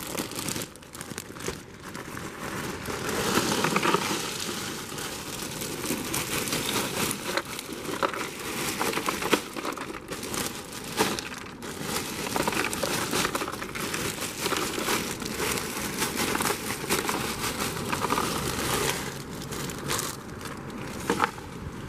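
A plastic bag of ice being emptied into a cooler: the bag crinkles and rustles as the ice cubes slide out and clink, a steady rustle dotted with many small clicks.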